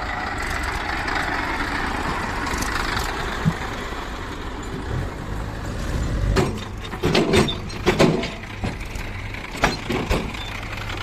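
Diesel engine of a JCB 3DX backhoe loader running steadily, with a run of thuds and clanks in the second half.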